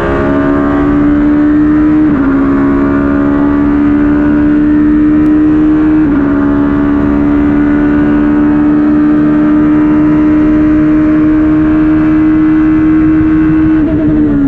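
Judd V8 of a Ligier JS P2 LMP2 prototype at full throttle, heard from the cockpit: the engine note climbs steadily and drops sharply twice, about two and six seconds in, as it shifts up into top gear. Near the end the note stutters and begins to fall as braking and downshifting start.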